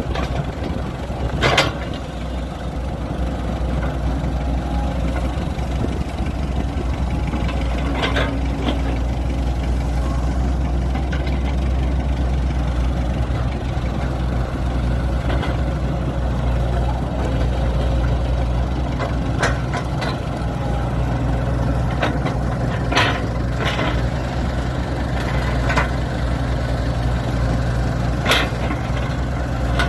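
Diesel engine of earthmoving machinery running steadily, with a few sharp metallic clanks scattered through it.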